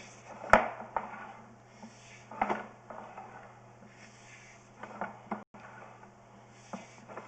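Hard knocks and clatters, the loudest about half a second in and others about 2.5 and 5 seconds in, over a steady low hum.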